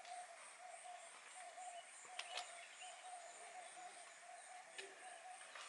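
Faint outdoor ambience: a steady, evenly pulsing animal chorus, with two sharp clicks a little after two seconds in and another near five seconds.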